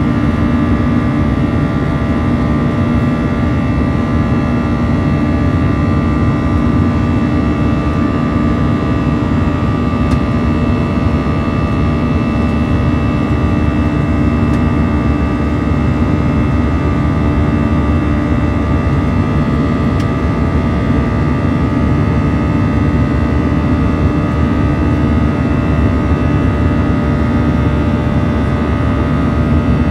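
Airbus A321's CFM56-5B turbofan heard from inside the cabin beside the engine at climb thrust: a steady, loud rumble with a low hum and several held higher tones, the engine's buzz.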